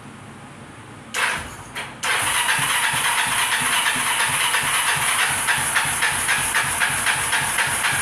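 Kawasaki quad's engine starting: two short bursts about a second in, then it catches about two seconds in and keeps running with a loud, fast, even pulse.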